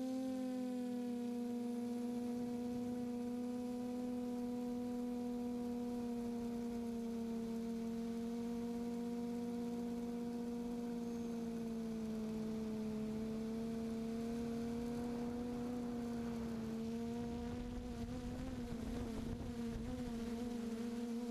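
QAV540G quadcopter's electric motors and propellers humming steadily in flight, one held pitched hum that sags slightly in pitch from about two-thirds of the way in. Wind buffets over the last few seconds.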